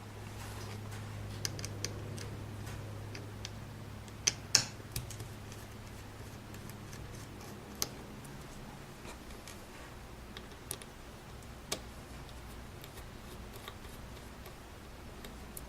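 Scattered small clicks and taps of a small screwdriver working the screws out of a hard drive's circuit board. The loudest pair comes about four and a half seconds in.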